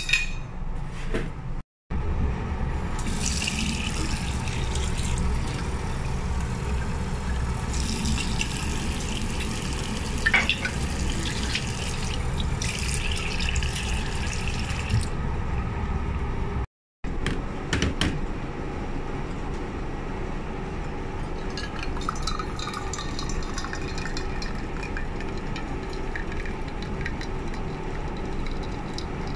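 Tap water running steadily into a stainless steel sink, rushing with a bright hiss. After a cut about 17 seconds in, a steadier, duller rush of water from a hot water dispenser filling a stainless steel insulated cup.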